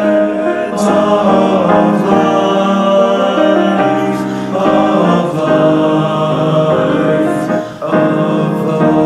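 High school mixed choir singing sustained chords in several parts, changing chord about every second, with a short break near the end. The voices were recorded separately and mixed into one virtual-choir track.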